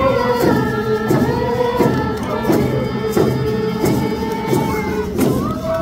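Group of voices singing a Lummi paddle song in unison over hand drums beaten in a steady beat, about three strikes every two seconds.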